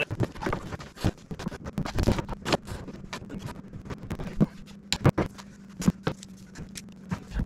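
Irregular scraping, rustling and clicking of yellow electrical cable being pulled through wooden roof trusses and handled, over a faint steady low hum.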